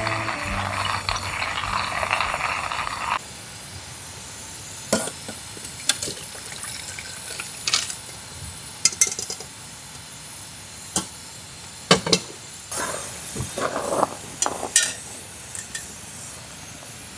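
A metal pot and utensil clinking and scraping as cooked motsu-ni (offal stew) is spooned and poured from one pot into another, in a dozen or so sharp separate clinks. For about the first three seconds a steady rushing noise is heard, which stops abruptly.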